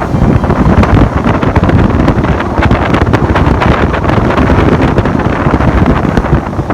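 Loud, continuous wind buffeting the microphone over the rushing noise of a motorboat moving at speed across the water.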